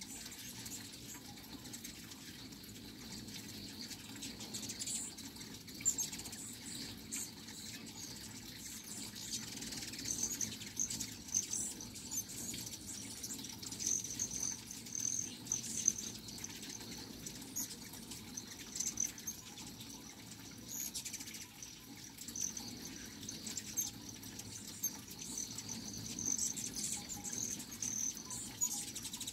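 A crowd of hummingbirds: the humming buzz of many wings with a constant stream of short, high chirps and twitters.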